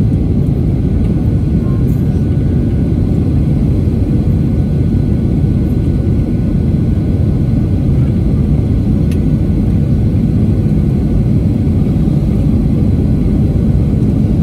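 Cabin noise of a Boeing 737-800 on final approach, heard from a seat over the wing: a steady, loud low rush of airflow and CFM56 engines, with a faint steady high whine above it.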